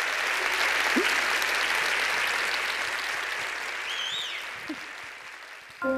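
Theatre audience applauding steadily, with a short whistle about four seconds in; the applause thins out near the end.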